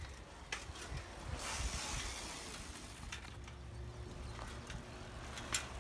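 Quiet street ambience: a steady low rumble with a brief hiss and a few light clicks, the sharpest click near the end.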